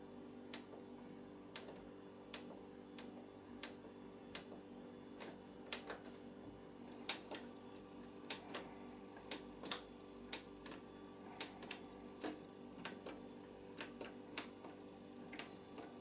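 Buttons on a Beko washing machine's control panel being pressed over and over, making faint, irregular clicks about one or two a second as the spin speed and temperature settings are stepped through.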